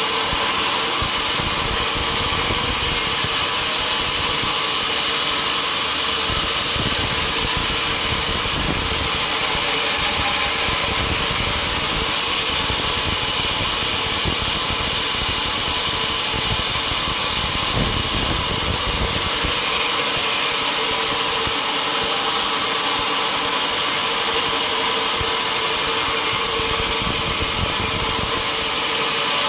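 Sawmill saw running steadily, cutting through a log with a constant, hissing machine noise and a steady hum.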